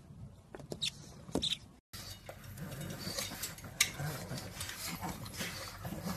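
Puppies making small sounds: a few brief high squeaks in the first second and a half, then a sudden change to a steady hiss with a sharp click about four seconds in.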